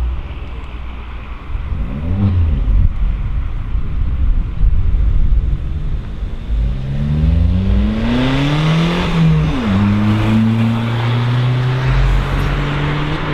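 Audi car accelerating hard toward and past, its engine note climbing, dropping sharply at an upshift about nine and a half seconds in, then climbing again as it goes by close. Low engine rumble from other cars is heard before it.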